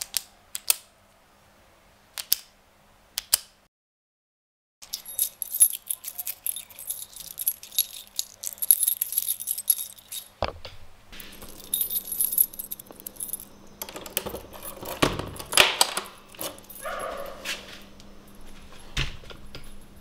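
A retractable ballpoint pen clicked a few times, then after a short pause a bunch of metal keys jangling and rattling as they are shaken and handled, with a few heavier clanks.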